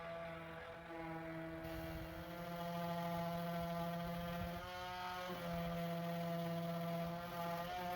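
Electric power sander running steadily with a whirring hum while sanding and feathering the repaired dent in a truck body panel; its pitch shifts briefly about five seconds in.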